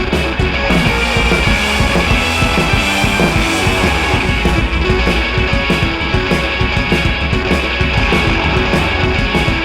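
Rock music with guitar and drums, steady and loud throughout.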